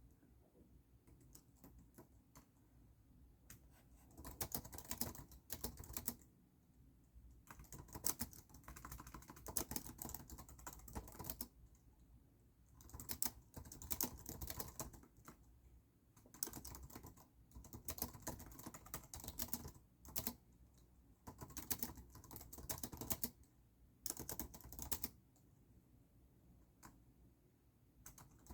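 Typing on a computer keyboard: runs of quick key clicks a few seconds long, broken by short pauses, with a longer pause near the end.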